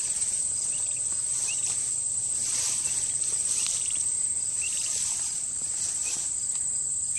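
Steady, high-pitched trilling of crickets in grass, with faint short peeps from a young wild turkey poult about once a second.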